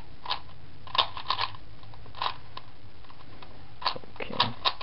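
Layers of a plastic 4x4 puzzle cube turned by hand: short, sharp plastic clacks at an uneven pace, some coming in quick twos and threes.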